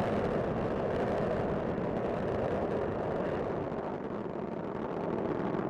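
Space Shuttle Discovery's solid rocket boosters and main engines during ascent, a steady rumbling noise with no breaks.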